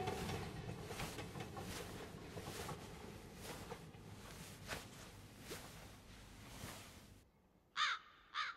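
A passing train's noise, with irregular clicks of wheels over rail joints, fading away and cutting off suddenly about seven seconds in. A crow then caws twice near the end.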